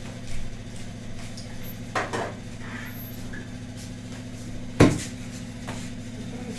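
Metal kitchen utensils clinking and knocking as rotis are turned with tongs on a gas stove, a few separate knocks with the loudest about five seconds in, over a steady low hum.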